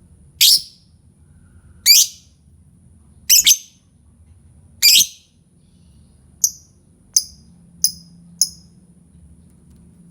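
Lovebird giving loud, shrill calls, about one every one and a half seconds with a quick double call near the middle, then four short, thinner chirps in quick succession.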